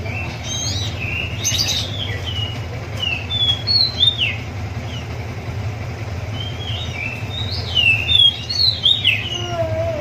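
A young hand-reared ciblek (prinia) chirping: quick, high sliding notes in two bursts, one over the first four seconds and another near the end, over a steady low hum.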